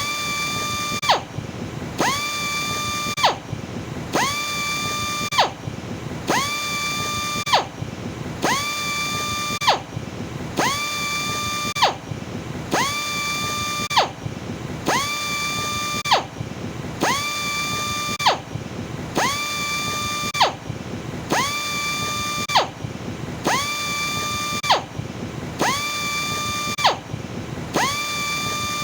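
Power sander running in short repeated bursts, about one every two seconds. Each time its high whine rises quickly to a steady pitch, holds for about a second and a half, then falls away briefly before the next burst.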